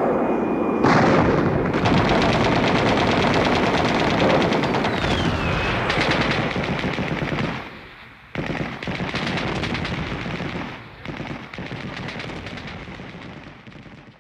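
Rapid machine-gun fire sound effect at the end of a song track, with a short break about eight seconds in, then fading away.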